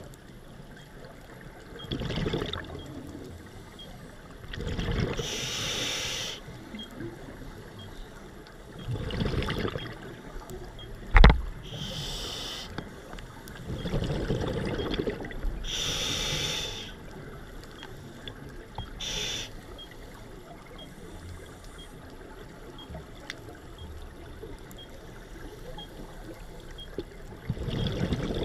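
Scuba diver breathing through a regulator underwater: slow hissing inhalations alternate with bubbling exhalations every few seconds. One sharp knock sounds about eleven seconds in.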